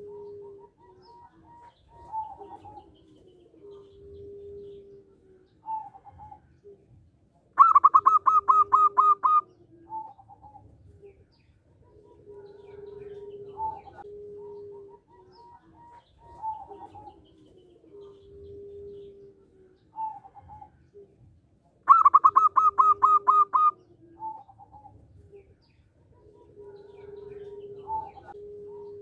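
Zebra dove singing: soft cooing notes repeat throughout, and twice a loud, rapid run of staccato notes lasts nearly two seconds.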